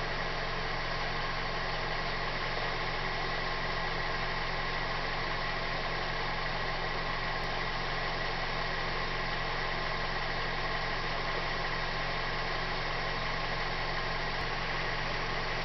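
Car engine idling steadily in gear, turning the bare front hub and brake rotor with the wheel off: an even mechanical hum with constant tones that does not change.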